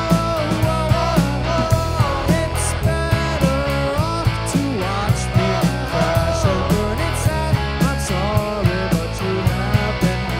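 Live rock band playing: electric guitars, electric bass and a drum kit, with a steady drum beat and sliding melodic lines over it.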